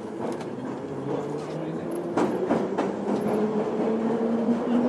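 A rumbling noise that grows steadily louder, with a low steady tone held under it and a few sharp clicks about two seconds in.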